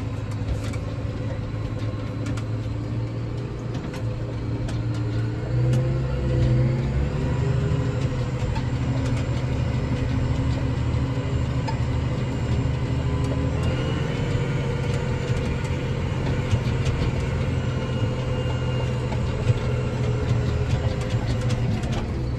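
Tractor engine running under load, heard from inside the cab as it pulls a lowered seed drill. A few seconds in, the engine note rises and gets louder as the tractor picks up speed, then holds steady.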